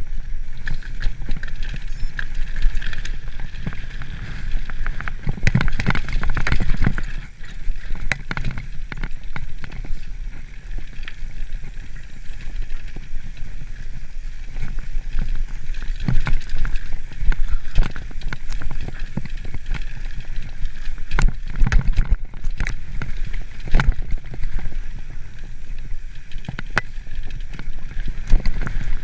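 Mountain bike riding fast down a dirt singletrack: tyre noise on the dirt with frequent irregular knocks and rattles as the bike goes over bumps, and a constant low rumble of wind on the microphone.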